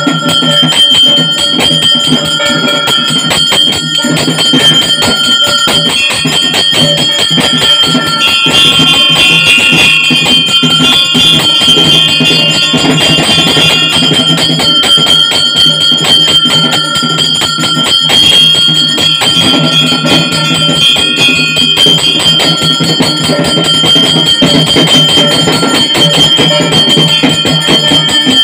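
A hand-held puja bell rung rapidly and without pause during the aarti, a dense clanging with steady ringing tones, alongside other ritual music.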